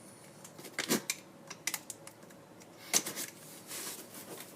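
Working at the packing tape on a taped-down cardboard shipping box: irregular sharp clicks, taps and short scrapes of tape and cardboard, loudest about a second in and again near three seconds.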